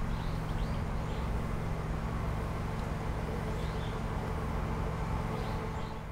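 Outdoor garden ambience: a steady low mechanical hum, with small birds giving short chirps several times.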